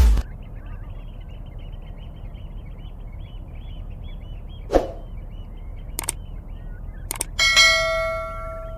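Flowing river water rushing steadily, with many small bird chirps throughout. A sharp call about halfway through and a couple of clicks come before a loud bell-like ding near the end that rings and fades.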